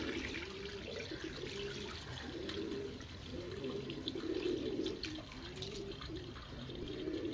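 Muddy rinse water pouring and trickling off the top of a plastic tub of soaked millet onto concrete, the tub tilted to drain it while the grain stays behind.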